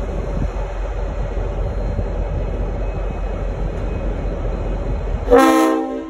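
V/Line N-class diesel locomotive's engine rumbling steadily as it rolls slowly. Just over five seconds in the rumble cuts off and a loud blast of a Leslie RS5T multi-chime locomotive horn starts, a chord of several tones sounding together.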